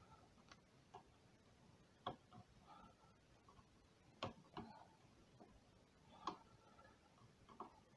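Faint, irregular clicks of a small screwdriver working the screw terminal on a 3D printer motherboard as a heater cable wire is tightened in. The clearest clicks come about two, four and six seconds in.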